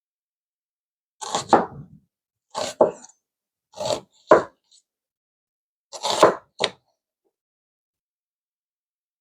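Knife chopping an onion on a cutting board: sharp strokes in four pairs, with silent gaps between them.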